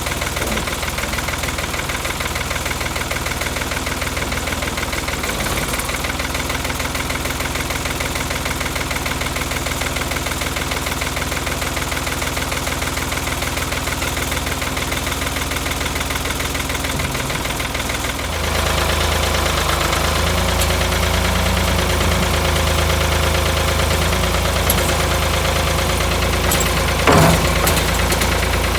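Ford 4500 backhoe's engine running steadily at idle after its spring start-up. About two-thirds of the way through it gets louder, with more low rumble, and there is one short, louder knock near the end.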